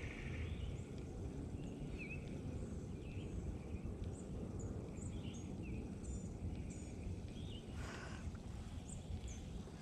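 Steady low outdoor rumble with small birds chirping in short, quick high notes throughout, and a brief hiss about eight seconds in.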